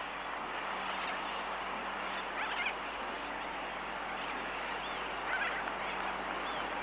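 Seabird colony: a dense, steady chatter of distant sooty terns, with two short nearer wavering calls from the Laysan albatross colony, and a faint steady low hum underneath.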